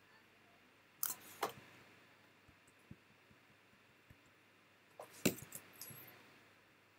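Sharp clicks of computer input devices being operated: a pair about a second in, then a quicker cluster of several clicks around five to six seconds in.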